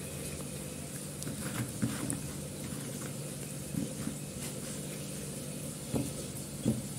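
Soft knocks of sliced eggplants being picked up and set down on a bamboo cutting board, a few brief taps spread through, over a steady low hum.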